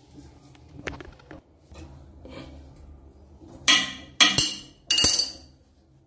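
Metal gate valve on a toilet's water supply being twisted out of its wall fitting by hand, still tight on its threads. A faint click about a second in, then three short, loud metallic clinks with a ringing edge in the second half.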